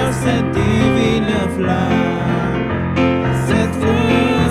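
A gospel hymn sung in French, accompanied on an electric keyboard with held low chords.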